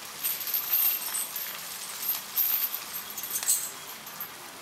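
Irregular light metallic clinks and jingles from the iron chain on a captive elephant's foreleg.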